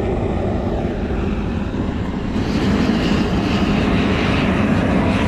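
Blowtorch flame burning steadily, louder and brighter from about two and a half seconds in, as it warms frozen blocks before they are laid.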